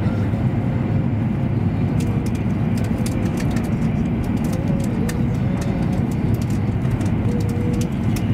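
Cabin noise of an E7 series Shinkansen running at high speed: a steady low rumble with a faint wavering hum and scattered light ticks.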